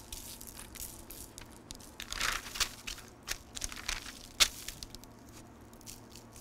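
Brown butcher paper crinkling and rustling as raw ribeye steaks are seasoned, lifted and turned over on it, with a single sharp tap a little over four seconds in.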